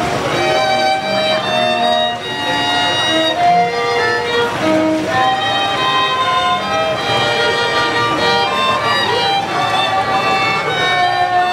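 Live string quartet playing a slow piece, the violin carrying held, singing notes over the other strings.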